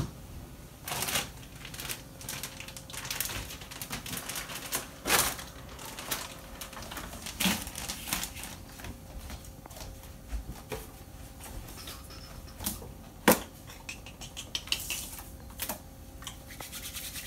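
Irregular clicks, rustles and light knocks of things being handled at a kitchen counter and sink, including plastic zip bags.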